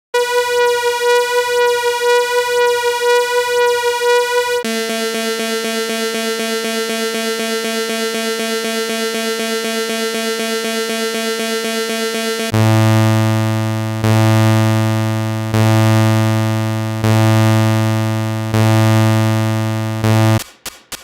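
Synthesized imitation of Siemens Magnetom Skyra 3-tesla MRI scanner sounds, built from buzzing electronic tones. A steady high buzz switches about four and a half seconds in to a lower steady buzz. About twelve and a half seconds in, that gives way to a loud deep buzz pulsing in five long beats about a second and a half apart, and just before the end a rapid knocking starts.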